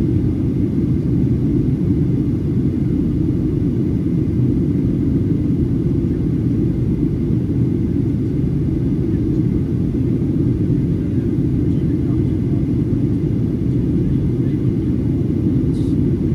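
Steady low rumble of airflow and the CFM56-7B turbofan engines, heard from inside the cabin of a Boeing 737-800 in flight.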